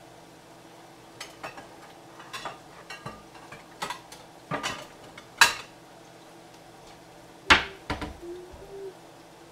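Kitchen clatter: a string of separate clinks and knocks of dishes and utensils being handled, the two loudest about five and a half and seven and a half seconds in, over a faint steady hum.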